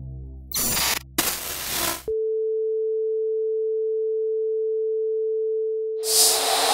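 Two short bursts of television static, then a steady single-pitch beep held for about four seconds, like a broadcast test tone. A loud noisy whoosh comes in near the end.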